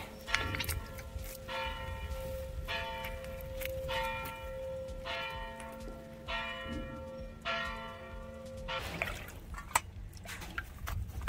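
A bell struck again and again, about once every 1.2 seconds, each stroke ringing out and fading over a steady tone. The ringing stops about nine seconds in, and a few sharp clicks and knocks follow.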